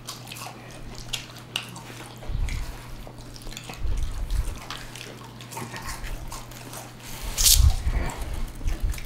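Wet chewing and mouth sounds of people eating crispy fried catfish and green beans, with scattered crackles of the fried breading and a few dull knocks. A louder, sharp crunch comes about seven and a half seconds in.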